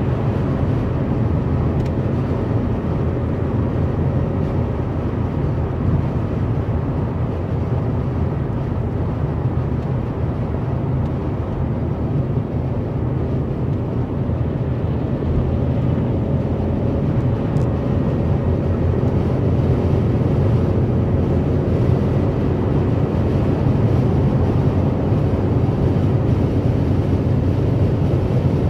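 Steady low road noise of a car cruising on a motorway: tyre and engine rumble heard from inside the cabin, with no change in pace.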